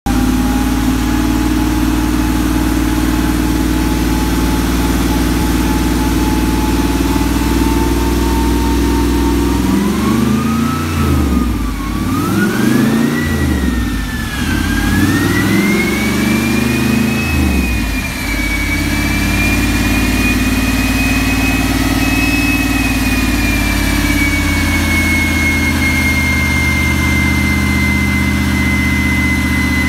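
Twin-turbo LS3 V8 in a 1967 Buick Skylark running on a chassis dyno: steady at first, then revved up and down a few times about ten seconds in, then holding a steady speed. A high whine sits over the engine, climbing with the revs and staying up afterwards.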